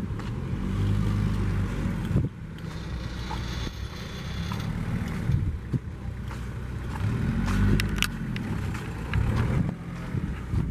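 Wind rumbling on the camera microphone, swelling and easing in gusts, with a few scattered clicks over it.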